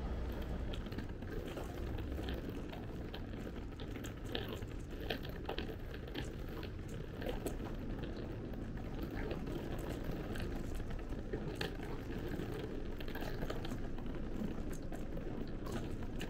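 City street ambience: a steady hum of traffic and city noise, with footsteps tapping on the paved sidewalk about once or twice a second.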